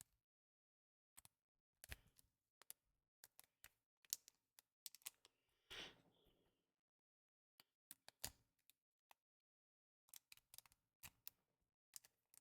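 Faint clicks and plastic rustling as a thick trading card is worked into a soft penny sleeve and a rigid top loader, with a short sliding scrape about six seconds in.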